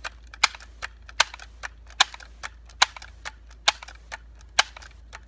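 Multi-pump pneumatic air rifle being pumped up: six strokes of the pump lever, each ending in a loud sharp clack, with a softer click between strokes, at an even pace of a little more than one a second.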